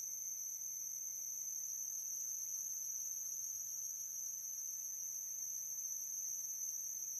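Steady high-pitched whine or buzz with a faint low hum beneath it, unchanging throughout.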